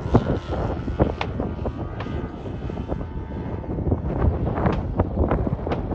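Large-scale RC aerobatic plane, a Pilot RC Extra 330LX with a GP123 engine on tuned exhausts, running in flight overhead, heard under wind buffeting the microphone.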